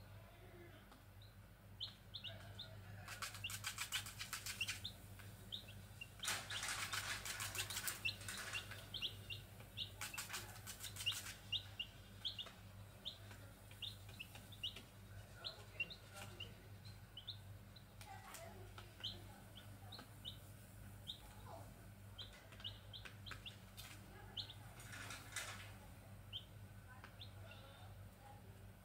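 Grey junglefowl chicks peeping, a steady stream of short high peeps repeated several times a second. A few short bursts of wing flapping break in, the longest about six seconds in.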